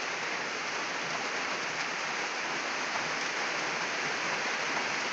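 Steady rain falling, an even hiss with no distinct drops or splashes standing out.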